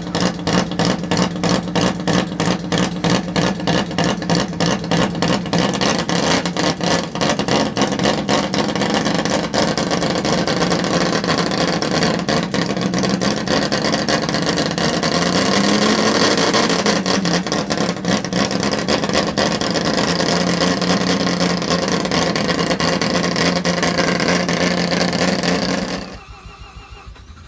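Wankel rotary engine running. It has a rapid, even pulsing at first, then settles into a smoother note that rises briefly in pitch about midway, before dropping away sharply near the end.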